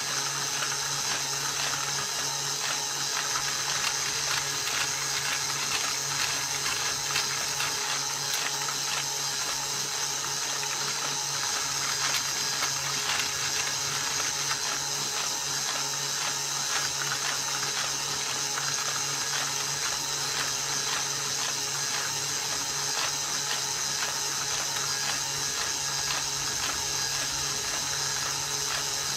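Plastic gears of a 3D-printed cutaway model manual gearbox turning: a steady, continuous clatter of meshing teeth with a low hum under it.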